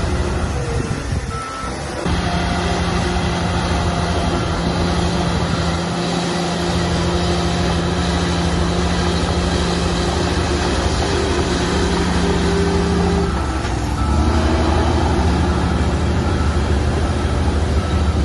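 Heavy diesel engine of earthmoving machinery running under load, a steady low drone. The note dips briefly about a second and a half in, then changes around fourteen seconds in and runs a little louder.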